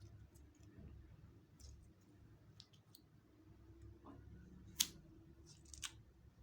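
Clear slime being mixed by hand: faint, scattered sticky clicks and pops, with one sharper pop toward the end, over a low steady hum.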